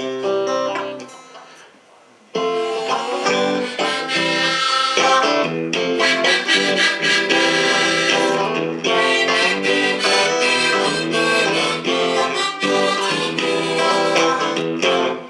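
Live instrumental introduction to a song. One chord sounds and fades, and about two seconds in a lively, steady-tempo instrumental part starts and runs on without singing.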